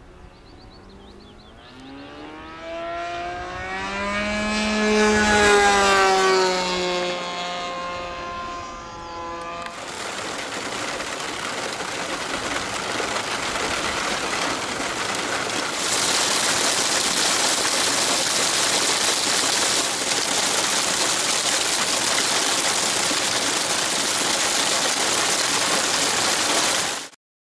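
A radio-controlled Velox model plane's engine passes overhead, its pitch rising then falling, loudest about five seconds in; the owner says the stripped plug threads in its cylinder head can be heard a little in the engine sound. About ten seconds in this gives way to heavy rain pelting the grass and the parked model planes, which grows louder a few seconds later and cuts off just before the end.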